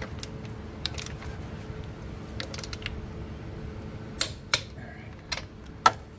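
A handful of sharp metal clicks at irregular intervals, most of them in the second half, from a hand torque wrench being worked on a lug nut and lifted off its socket. A steady low hum runs underneath.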